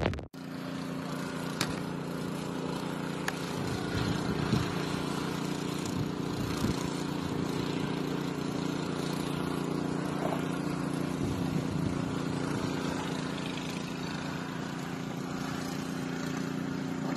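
Vehicle engine running steadily, a low even hum with a few faint knocks.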